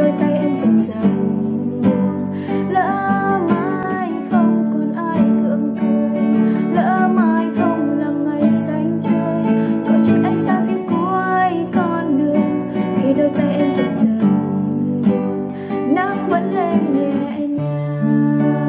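Nylon-string classical guitar played fingerstyle: a continuous run of plucked chords and melody notes.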